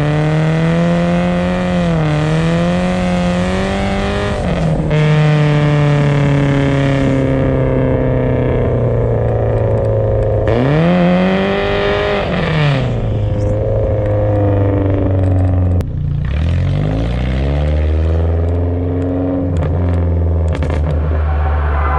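BMW engine under drift throttle, its revs rising and falling repeatedly every few seconds. About two-thirds of the way in the revs drop sharply and then hold lower and steadier.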